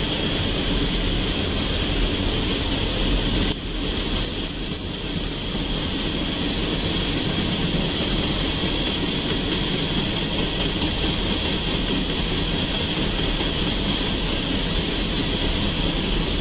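A freight train of tank cars rolling past, a steady rumble and rush of wheels on rail with a constant high ring over it, picked up by a trackside webcam microphone.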